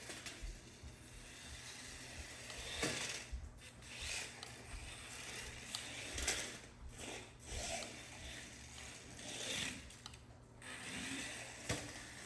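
Small RC dune buggy's electric motor and gears whirring in repeated surges as it is driven in high-speed mode, its wheels spinning for lack of traction on the floor.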